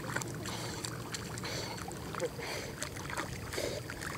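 Water splashing and sloshing at the shoreline, a steady wash with many small, irregular splashes.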